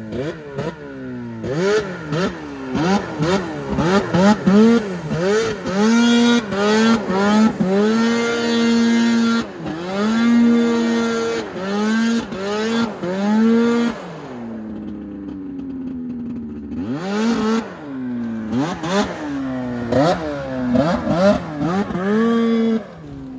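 Snowmobile engine revved hard over and over, its pitch jumping up and falling back many times. It holds high revs for a few seconds twice in the middle, drops away to a low idle, then revs in quick blips again near the end.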